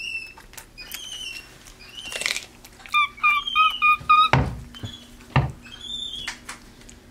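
Capuchin monkey making short, high chirping calls, with a quick run of about six chirps around three to four seconds in. Two low thumps follow a little after.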